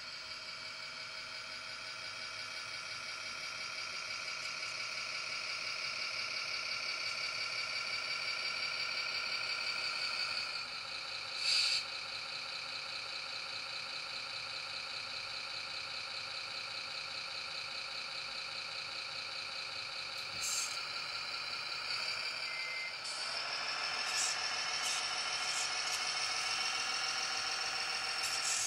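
Simulated diesel truck engine from a 1/14-scale Tamiya King Hauler RC truck's sound unit, played through its small speaker. It runs steadily, changes note about a third of the way in and revs up about two-thirds of the way in, with short air-brake hisses about twelve and twenty seconds in.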